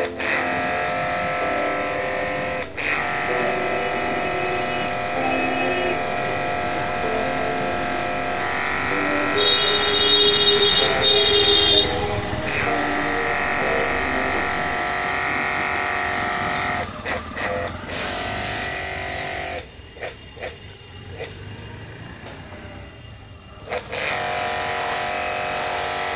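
Portable electric pressure washer running with a steady motor whine that shifts in pitch a few times. It grows louder and higher for a few seconds near the middle, drops away for about four seconds near the end, then starts up again.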